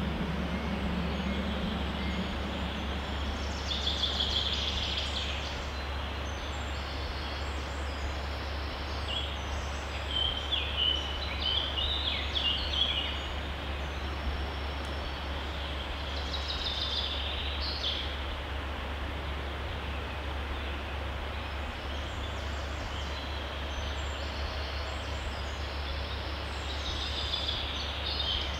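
A stream flowing steadily, with songbirds singing short phrases over it several times, spaced out by quieter stretches.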